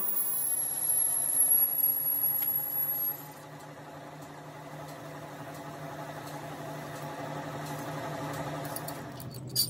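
Engine lathe turning a steel truck axle spindle blank, its motor and gearing running steadily. A thin high whine in the first three seconds stops as the sound suddenly drops quieter, and a brief clatter comes near the end.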